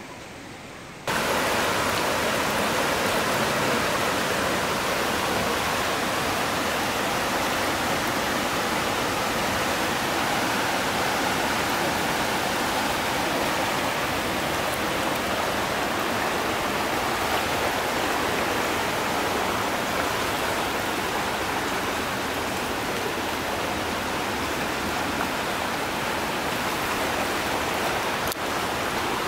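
Fast-flowing river water rushing over rapids: a loud, steady rush that starts suddenly about a second in.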